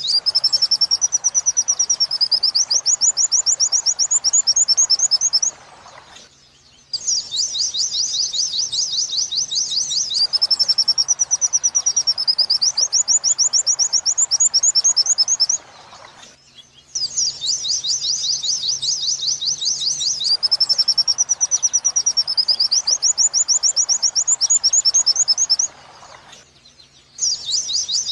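Recorded white-eye (pleci) song of the 'wit-wit sambung kunti' type, played as a loop: fast, high chirping trills with a wavering, rising-and-falling phrase, the same roughly 9-second phrase repeating three times with short pauses between. It is training audio for teaching caged white-eyes this song.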